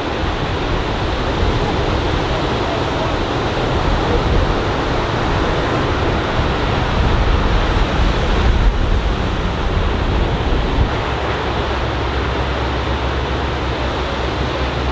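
Ocean surf washing and breaking on a beach as a steady rushing noise, a little louder around the middle, with wind rumbling on the microphone.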